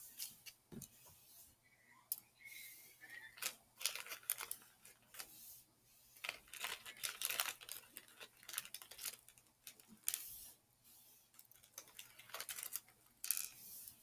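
Irregular light clicks, taps and scratchy rustles of small plastic items and containers being handled while making slime, louder and busier around the middle and again near the end.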